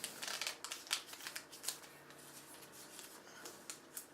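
Paper being folded by hand into an origami model: crisp rustles, crackles and creasing swipes of the sheet, busiest in the first two seconds, then sparser.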